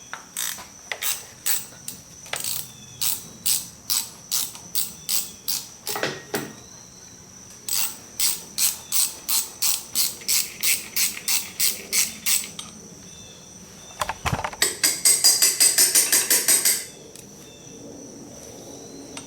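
Hand socket ratchet clicking in repeated strokes, about three clicks a second, as small 2 BA nuts are backed off a brake-hub locking plate. The clicking picks up in a second run, and near the end comes a short burst of rapid clicking as the nut spins loose.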